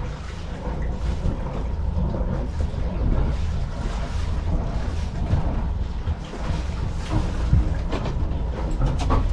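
Steady low rumble of a sailboat's inboard engine idling in neutral, mixed with wind buffeting the microphone, and a short click near the end.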